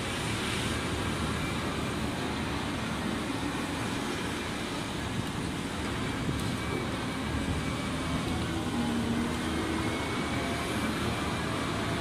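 Steady drone of heavy diesel material-handling excavators working grab buckets to load wood chips into a ship's hold.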